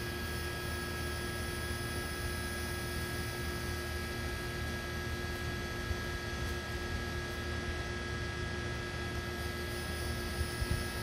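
Steady machine or electrical hum with constant hiss, unchanging throughout, with a few soft bumps near the end.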